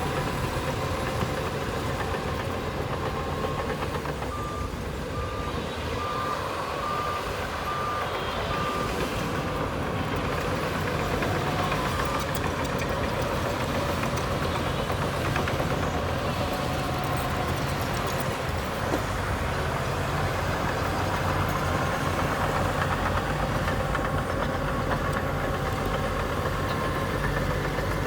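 Diesel engine of heavy earthmoving equipment running steadily. A reversing alarm beeps about twice a second for a few seconds, starting about four seconds in.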